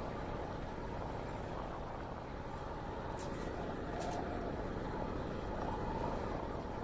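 Steady rush of wind on the microphone mixed with bicycle tyres rolling on asphalt, from a bike riding along at an even pace.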